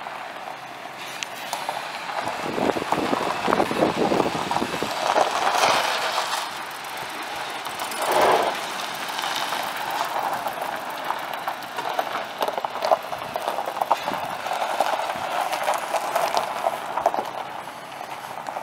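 2002 Ford F150 pickup's 5.4-litre V8 truck running, a continuous vehicle noise that swells and eases.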